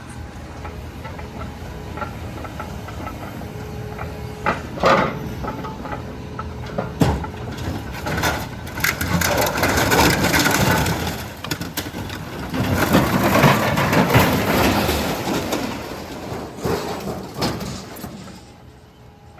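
A vehicle engine idles steadily underneath. Over it come a few sharp bangs, then two long stretches of loud crashing and rattling, typical of scrap metal being tipped or thrown onto a pile.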